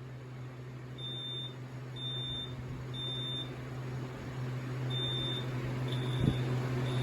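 Older First Alert smoke alarm's horn sounding its test alarm: three high beeps about a second apart, a pause, then three more. The second group comes out fainter and uneven, a horn that doesn't want to behave.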